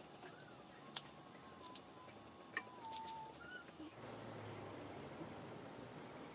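Insects trilling steadily and high-pitched in the background, with a few light clicks and a faint thin wavering whistle in the first half.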